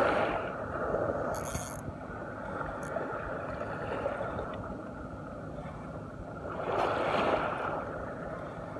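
Small waves washing on the shore, with one louder wash swelling near the end; a brief high hiss sounds about one and a half seconds in.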